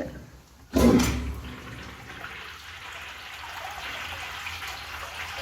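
An old Standard-brand urinal flushed: a sudden loud rush as the valve opens just under a second in, then water running steadily through the bowl.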